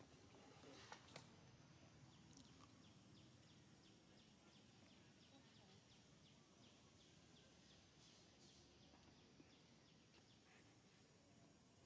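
Near silence: faint outdoor ambience with a soft, high chirp repeating about three times a second through the middle, and a few faint clicks.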